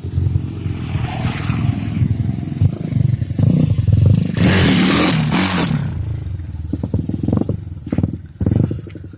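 Motorcycle with a Honda Tiger single-cylinder four-stroke engine running and being revved in throttle blips. The longest, loudest rev comes about halfway through, with a shorter one near the end.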